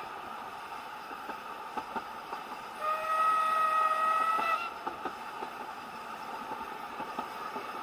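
Steam locomotive whistle blown once for about two seconds, a single steady note. Underneath, the carriage runs along with a steady rolling noise and scattered wheel clicks.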